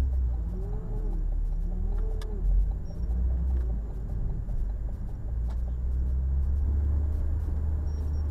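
Steady low rumble of a motor vehicle, with two faint wavering sounds in the first few seconds.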